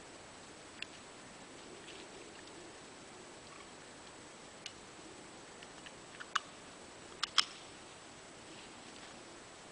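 Quiet outdoor background hiss broken by a few faint, sharp clicks, the loudest a quick pair about seven seconds in.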